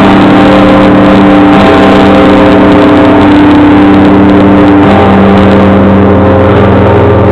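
A multi-ton church bell ringing very loud, its deep hum and overtones overloading the microphone, with fresh strokes of the tongue renewing the tone every couple of seconds.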